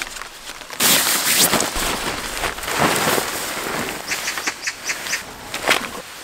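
A large tarp being unfolded and spread out over gravel, its fabric rustling loudly from about a second in, with a run of short sharp crackles toward the end.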